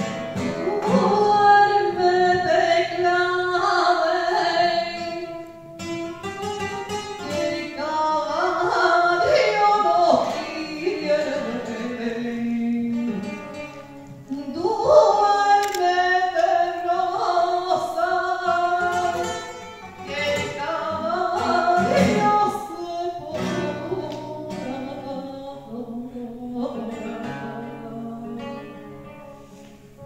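A woman singing a song into a microphone, accompanied by a Spanish guitar, in long phrases with short breaks between them.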